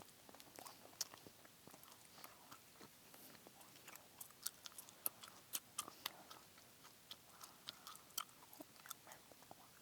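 Close-miked gum chewing: wet clicks and smacks of the mouth, soft and irregular, coming thicker and louder in the middle of the stretch.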